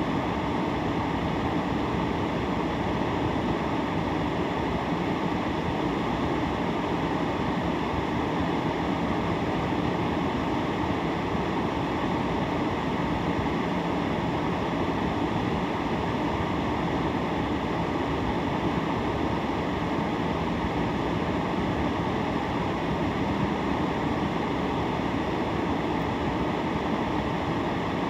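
Steady rushing noise inside the cabin of a car sitting at a red light, unchanging throughout.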